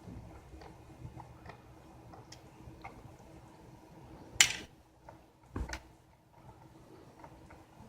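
Scattered light clicks and taps from hands and tools working on an opened laptop's internals, with one sharp, loud click or clack about four and a half seconds in and a duller knock about a second later.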